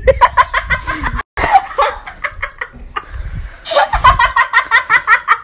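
A person laughing hard in quick, repeated 'ha' sounds; the sound cuts out abruptly for a moment about a second in, and the rapid laughing picks up again near the end.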